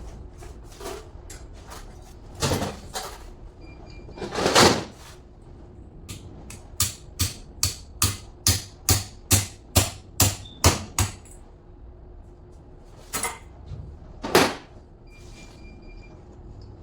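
Hammer blows: a few single knocks, then a run of about a dozen evenly spaced strikes, roughly three a second, then two more single knocks near the end.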